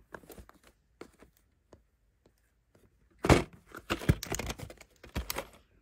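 White plastic VHS clamshell case being handled and snapped open: a few faint taps, then, about three seconds in, a quick run of sharp plastic clicks and knocks as the lid comes free and the tape inside is moved.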